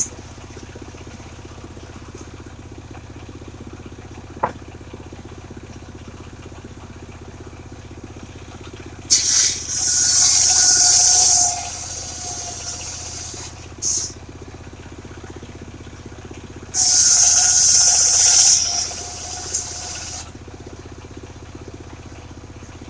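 Engine-driven portable circular sawmill running steadily, its blade ripping through mahogany twice, each cut a loud, hissing whine two to three seconds long over the steady drone of the engine.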